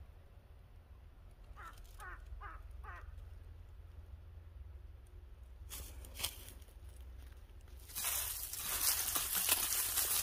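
A crow caws four times in quick succession, faintly, about two seconds in. From about eight seconds in, loud close crackling and scraping, as of dry leaves and soil being disturbed by hand or tool.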